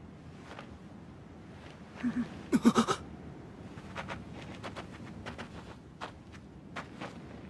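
A girl's wordless voice, muffled by a bamboo gag: two short hums about two seconds in, then a louder quick run of pulsing hums. A scatter of faint soft ticks follows.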